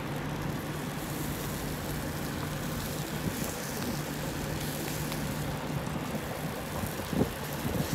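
Steady hum of an idling truck engine, one constant low tone, under light outdoor noise, with a plastic spatula scraping and knocking in a cast iron skillet a few times near the end.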